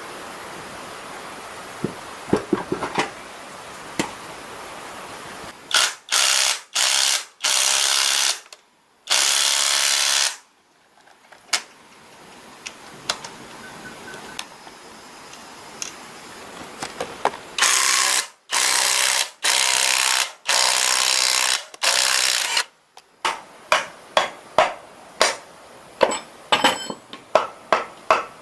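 Hand and power tools at work on a diesel engine: scattered clicks and taps, then several bursts of loud hissing noise of about a second each, and a run of sharp taps about twice a second near the end.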